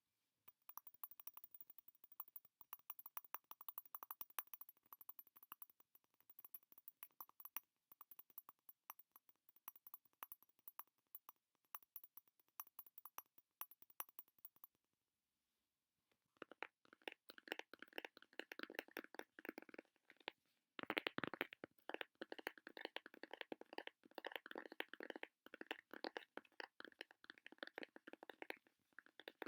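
ASMR tapping: very fast, dense taps close to the microphone in two stretches, split by a pause of about two seconds past the middle. The second stretch is louder and fuller.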